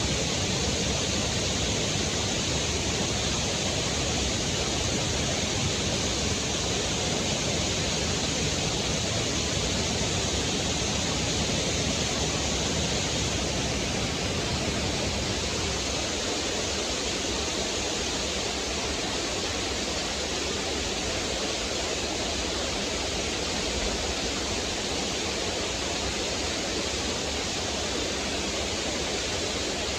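Small waterfall splashing over rocks into a stream: a steady, even rush of water.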